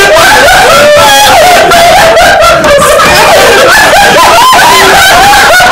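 A group of people laughing hard and shrieking, very loud, with high wavering cries over one another.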